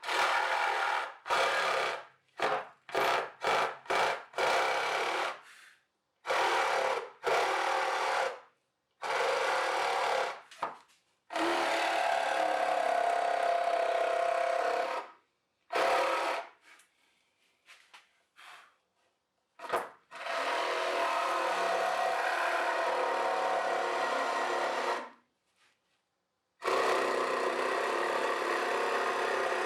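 Jigsaw cutting Baltic birch plywood, stopping and starting: a quick string of short bursts at first, then longer cuts of several seconds each.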